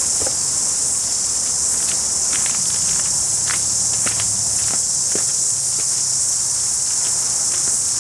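A loud, steady, high-pitched insect chorus, with a few light clicks and knocks scattered through it.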